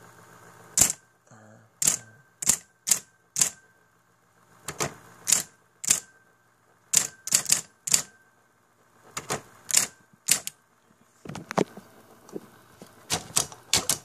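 Royal Apollo 10 electric typewriter typing one key at a time: about twenty sharp clacks of the motor-driven typebars hitting ribbon and paper, at an uneven pace in short groups with brief pauses between words. A faint steady hum from the running motor lies beneath.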